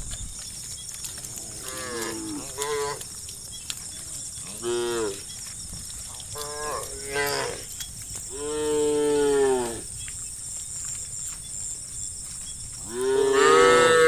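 Cattle mooing: about six separate calls, some short and some drawn out, the longest and loudest about halfway through and another near the end.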